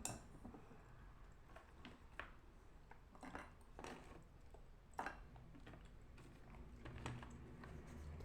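Faint, scattered snaps and clicks of chunks of edible clay being broken apart by hand, about six over several seconds.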